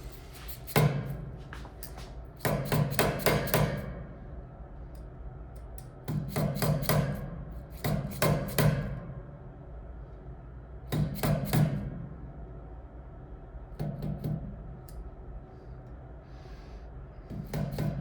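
Hammer tapping on a metal pulley sheave hub in short bursts of a few quick strikes, with pauses between. The taps nudge the sheave along its shaft into alignment with the other pulley.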